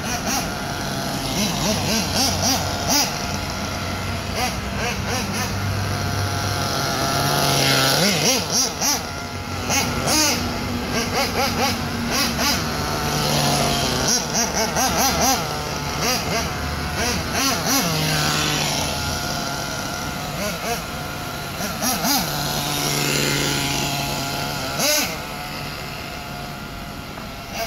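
Nitro RC buggy's small .28-class glow engine revving up and down in repeated surges as it drives, still being broken in. A few short, sharp knocks break through.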